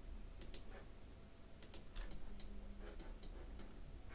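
Faint, scattered clicks of a computer mouse and keyboard, several over a few seconds, while edges are shift-clicked one by one.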